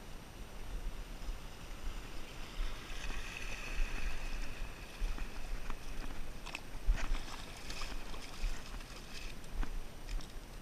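Small waves lapping at a pebble shore, with wind rumbling on the microphone. A spinning reel whirs for a few seconds as a small fish is reeled in. A scatter of sharp clicks follows in the second half.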